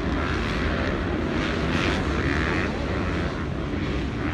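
Motocross bike engines droning across the track, swelling and fading as they go round.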